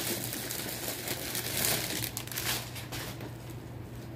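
Clear plastic bag crinkling as folded towels are pulled out of it, in uneven bursts that thin out toward the end.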